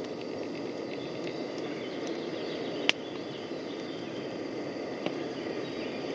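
Campfire burning with a steady crackling hiss and a few sharp pops, the loudest about three seconds in.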